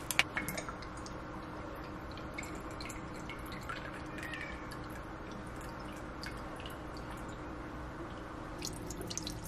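Balsamic vinegar poured in a thin stream from a glass bottle into a measuring cup: a faint, steady trickle and drip, after a few small clicks as the bottle's cap is twisted off at the start.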